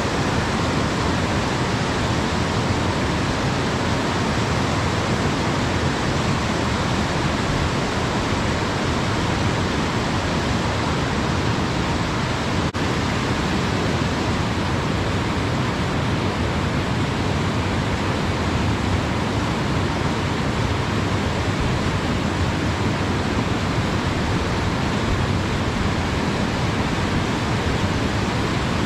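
River water rushing steadily in a constant full hiss.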